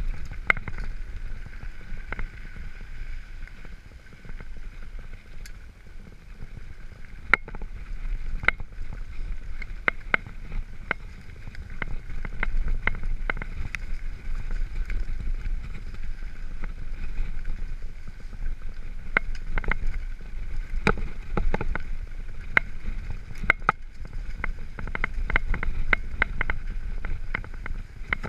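Mountain bike riding down a rough dirt trail: a steady low rumble of tyres and wind, with frequent sharp knocks and rattles of the bike over bumps, coming more often in the second half.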